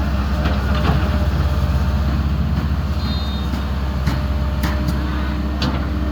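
An engine running steadily with a low, fast-pulsing drone, with several sharp knocks or clanks and a brief high beep about three seconds in.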